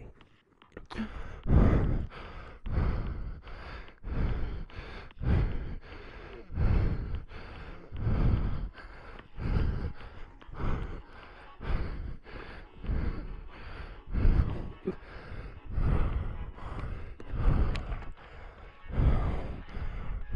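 Heavy, rhythmic breathing of a motorcyclist caught close by the helmet microphone, a loud breath about every one and a half seconds. It is the laboured breathing of a rider pinned under his crashed motorcycle.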